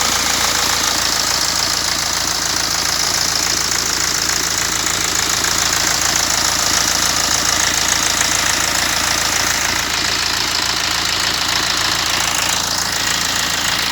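BMW X1 diesel engine idling steadily with a new crankshaft damper pulley fitted; the knocking rattle from the old faulty pulley is gone, by the mechanic's account.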